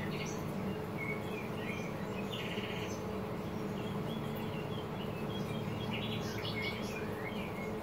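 Traeger PTG+ pellet grill's fan running with a steady hum during startup, its speed turned down by an added fan rheostat; birds chirp now and then in the background.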